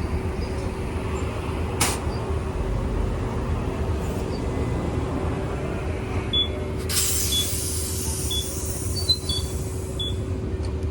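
Steady engine and road rumble of a moving vehicle heard from inside, with a faint steady hum. There is a sharp click about two seconds in, and a few short high chirps near the end.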